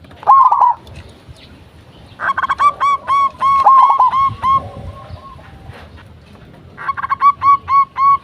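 Zebra doves (perkutut) singing: rapid runs of short, high cooing notes, about five a second. One run comes about two seconds in and another near the end, with the notes overlapping in places.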